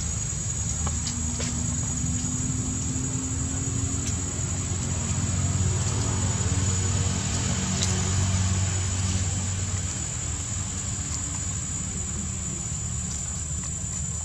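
A steady low engine drone, like a motor vehicle running nearby, slightly louder around the middle, with a thin constant high-pitched whine above it.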